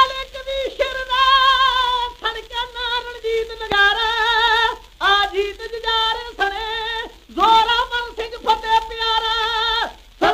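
Punjabi kavishri singing: voices holding long, wavering notes in phrases broken by short pauses, with no clear words.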